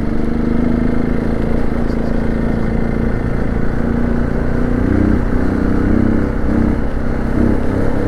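Hero XPulse 200 4V's single-cylinder engine running under way, its note steady at first, then dipping and rising a few times in the second half.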